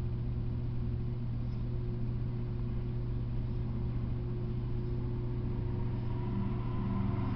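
Steady low hum with a fainter higher tone above it, growing a little louder near the end.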